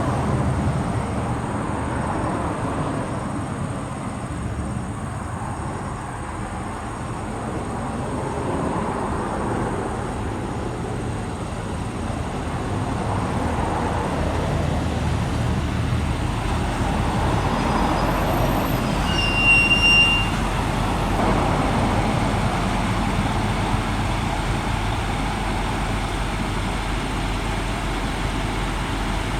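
JR Kyushu KiHa 200 series diesel railcar running, its engine and rolling noise steady and slowly swelling and easing. A brief high beep about two-thirds of the way in.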